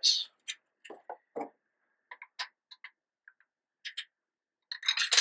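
Light clicks and knocks of metal parts as a GHK AKMS airsoft rifle with an underfolding stock is handled, turning into a quick run of clattering clicks near the end.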